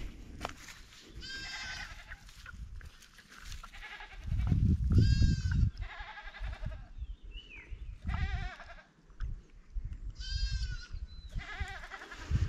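An animal calling over and over: about six short, high, wavering cries, one every one to two seconds. A loud low rumble, like wind or handling on the microphone, comes in about four seconds in and lasts a couple of seconds.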